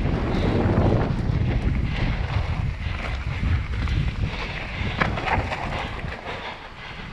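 Wind buffeting the action camera's microphone and tyres rolling over a leaf-covered dirt trail during a fast mountain-bike descent, with knocks and rattles from the bike over roots and bumps.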